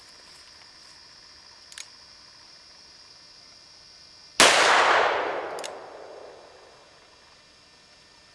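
A single shot from a Smith & Wesson .357 revolver with a 6-inch barrel, about four seconds in, its report ringing out and fading over about two seconds. A steady high insect drone runs underneath.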